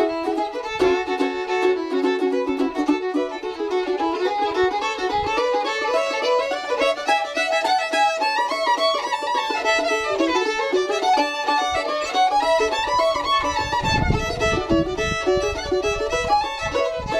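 Fiddle and mandolin duo playing a fast old-time or bluegrass tune: the fiddle runs melody lines up and down over the mandolin's picked chords. Near the end the tune settles onto a long held note.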